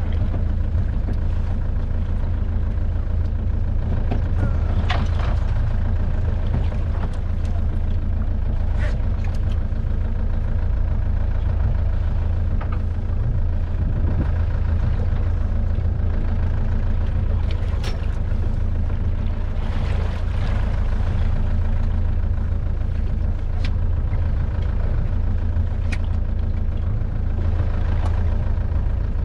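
Rhea 750 Timonier motorboat's engine running steadily at low revs, a constant low hum, with a few sharp clicks and knocks now and then.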